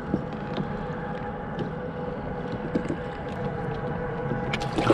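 Kayak on open water: a steady wash with a faint steady hum, scattered small clicks and knocks of hull and fishing gear being handled, and a few louder sharp knocks near the end while a fish is being unhooked.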